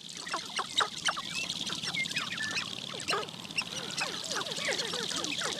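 Sharp-tailed grouse displaying on a lek: many birds calling over one another in a continuous chorus of short calls that fall or arch in pitch, over a steady high buzz.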